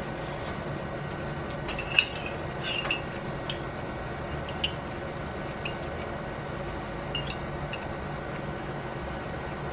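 Metal cutlery clinking against a small drinking glass several times at uneven intervals, the sharpest about two seconds in, over a steady low room hum.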